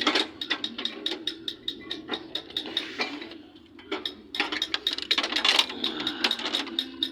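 Rapid clicking of a ratcheting hand tool working a fastener, with a short pause about halfway through.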